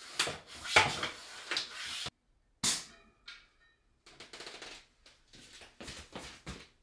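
Floor pump inflating a road-bike tyre: a run of quick, sharp hissing strokes with clacks from the pump, then after a short break a sudden hiss and more irregular hissing strokes and clicks.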